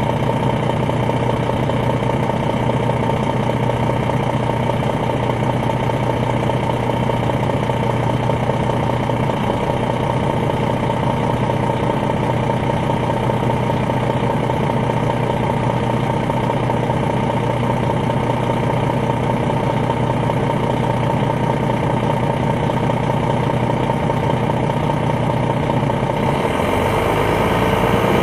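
Detroit Diesel Series 60 inline-six diesel of an MCI D4000 coach idling steadily, heard from on board the bus. Near the end a hiss starts and the engine begins to rise in pitch.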